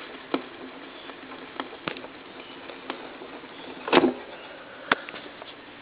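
Steady hiss from a vintage portable record player with no music, broken by scattered clicks and pops, the loudest a short crackling cluster about four seconds in.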